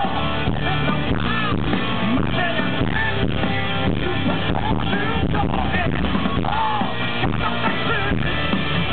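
Rock band playing live: electric guitars, bass and drums with a man singing at the microphone, loud through the festival PA.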